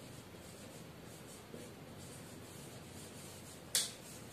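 Marker pen writing on a whiteboard: faint rubbing strokes of the tip on the board. A brief sharp hiss stands out near the end.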